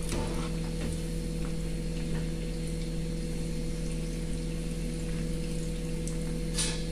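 Bread-coated ice cream ball deep-frying in hot oil in an iron kadai, the oil sizzling steadily over a constant low hum. A short sharp clatter comes near the end.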